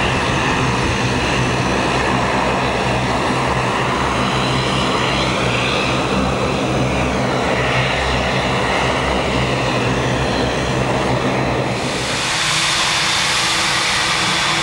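Boeing 777-300's twin jet engines at takeoff power, a steady deep rumble with a layered whine that shifts in pitch as the airliner lifts off and climbs away. About twelve seconds in it cuts abruptly to a Boeing 787-8 Dreamliner taxiing, a brighter hissing whine with a steady high tone.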